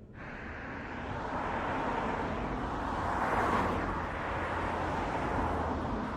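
Vehicle noise, a steady rushing sound with a low hum, swelling to a peak about three and a half seconds in and then easing off a little.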